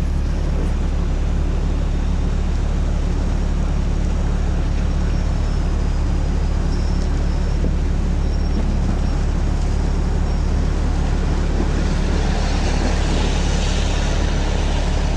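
Sherp amphibious ATV's diesel engine idling, heard from inside its cab: a loud, even low drone that holds steady without revving.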